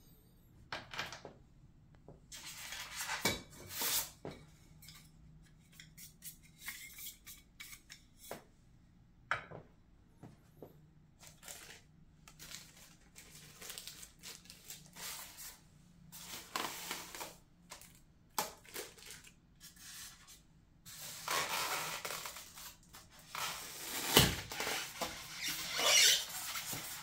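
Unboxing handling noise: hands rustling clear plastic wrap and scraping and squeaking against a polystyrene foam packing tray as a diecast model airliner is worked loose. The rustling comes in irregular bursts, busier and louder near the end, with a sharp knock.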